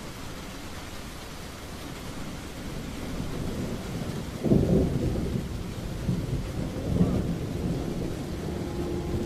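Steady rain falling, with a sudden low rumble about halfway through and a couple of weaker rumbles shortly after.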